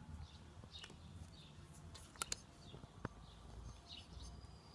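Faint birdsong: a small bird gives short falling chirps over and over, about one every half second to a second. A few sharp clicks come a little past the middle.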